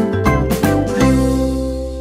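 Cheerful children's background music with plucked notes and a steady beat, settling into a held chord about a second in.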